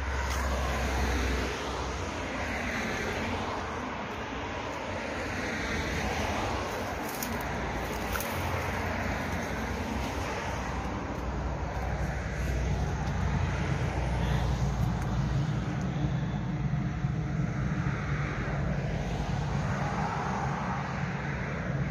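Road traffic: cars passing one after another, their tyre and engine noise swelling and fading several times over a low rumble.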